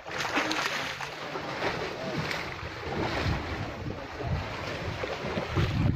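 Wind buffeting the microphone over sea water sloshing and splashing against the side of a boat, where a hooked cobia is being hauled up on a handline.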